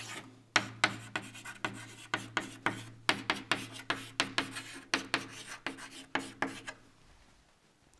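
Chalk writing on a blackboard: a quick, uneven run of sharp taps and short scratching strokes that stops near the end.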